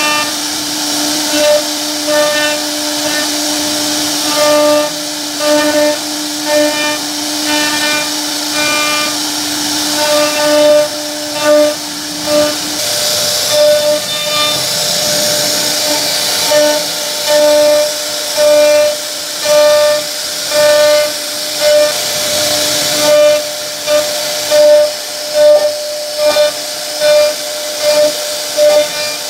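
CNC wood router's spindle whining at a steady pitch as its bit carves into a wooden board. The cutting sound swells and fades about once a second as the head sweeps back and forth through the pattern.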